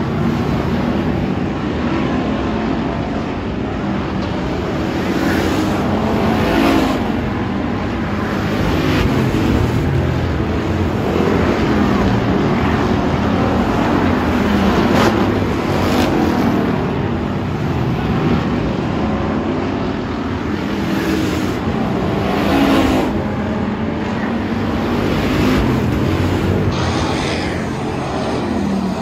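Hobby stock race cars running laps on a dirt oval, engines revving up and easing off through the turns, with louder swells several times as cars pass close by.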